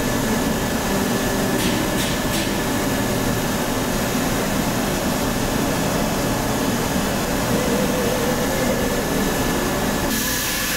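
Steady whooshing noise of workshop machinery running, with a thin high whistle held throughout and a few faint clicks about two seconds in.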